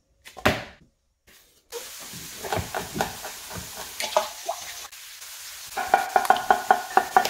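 A kitchen knife chopping on a wooden cutting board over a steady hiss, with scattered cuts and then a quick, even run of about ten chops near the end.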